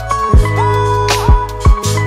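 Background music with a steady beat: deep kick drums that drop in pitch, cymbal hits, and held notes that slide up into pitch.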